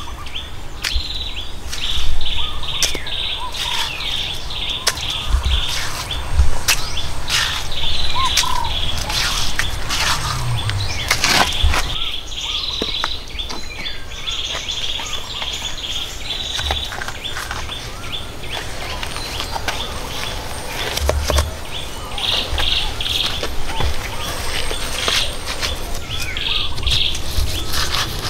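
Rough stones being set into a wall bedded in wet mud mortar: scattered knocks and clacks of rock on rock, with scraping and squelching of mud, over steady high-pitched chirping.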